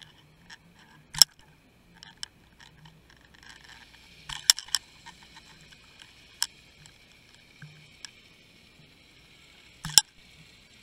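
Scattered sharp clicks and knocks, a few of them loud, over a faint steady hiss, picked up underwater by a camera in its housing as it is towed along with a fishing rig.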